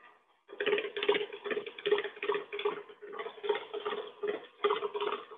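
KitchenAid stand mixer running, its flat beater paddling butter batter as the egg white is worked in. It makes a quick, uneven rhythmic slapping, about four beats a second, starting about half a second in.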